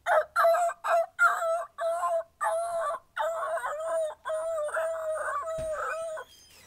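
A person imitating a pack of dogs with the voice: a quick run of short yips and barks, then longer wavering howl-like calls, stopping suddenly about six seconds in.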